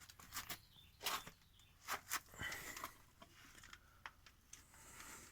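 Faint footsteps, scuffs and rustles, about a dozen irregular knocks and shuffles, as someone climbs down into a garage inspection pit.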